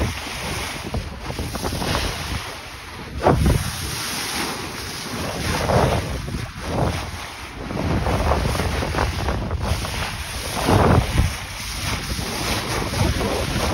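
Wind buffeting the microphone over the rush and splash of water along a sailboat's bow under way, with a few louder surges of splashing.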